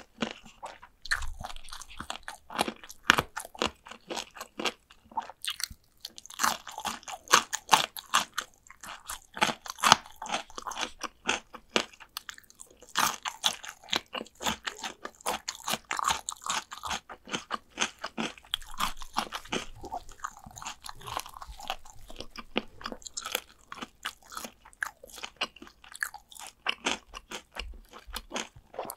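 Close-miked crunching and chewing of crispy fried chicken drumsticks: dense runs of sharp crackles as the crust is bitten and chewed, broken by brief pauses.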